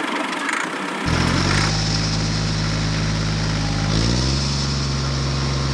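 A small engine comes in running steadily about a second in, and its pitch rises a step around four seconds in, like a light rev.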